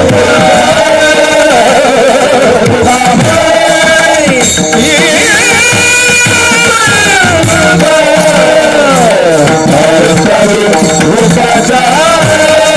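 Devotional kirtan singing with tabla: a single voice holds long phrases that slide up and down in pitch over a steady drum beat.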